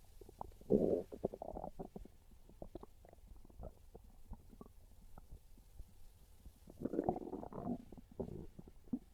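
Hungry stomach growling: two longer rumbles, one about a second in and one about seven seconds in, with small pops and squelches in between.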